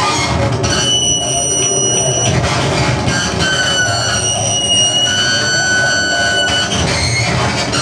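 Live electronic noise music played on tabletop electronics: a loud, dense wall of rumbling noise. High, steady whistling tones come in just under a second in and drop away near the end.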